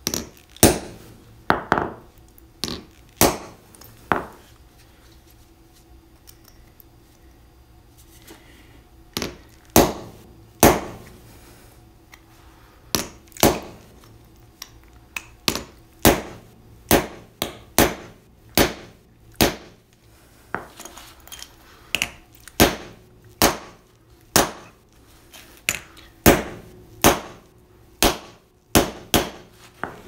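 A 3-pound hammer striking a hardened-steel punch held against a steel bike-lock body: dozens of sharp metal-on-metal blows, each ringing briefly. The punch is being driven in beside the shackle to force the lock open. After the first few blows there is a pause of several seconds, then a steady run of strikes about one to two a second.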